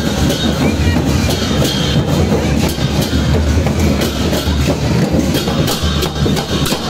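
Large wooden festival chariot rolling along the street: a steady heavy rumble with rapid clattering from its wheels.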